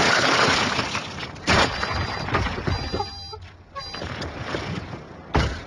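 A car's side window being smashed in: safety glass shatters loudly for about a second. A second hit comes about a second and a half in, with high beeping tones in the middle and another thump near the end.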